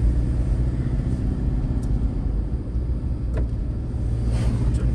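Steady low rumble of a car driving on a paved road, heard from the moving vehicle. An oncoming car passes with a brief whoosh near the end.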